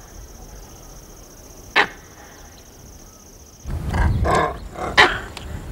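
A monkey calling loudly with rustling, starting suddenly about two-thirds of the way in, with a sharp strike about a second later. Before that, a thin steady high tone and one sharp strike over quiet.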